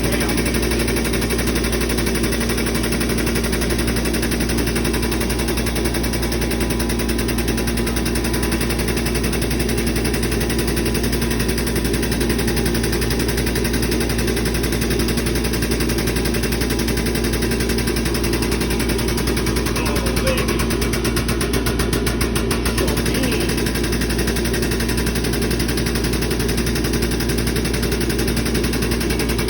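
Steady, loud machine noise with a fast rattle over a constant low hum, unbroken throughout.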